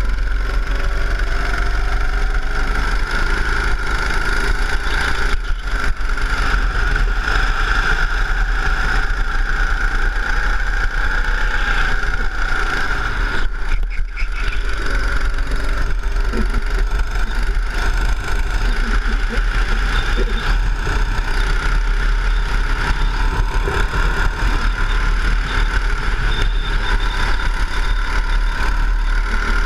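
Go-kart engine running at racing speed, heard from a camera mounted on the kart itself: a loud, steady drone over a strong low rumble.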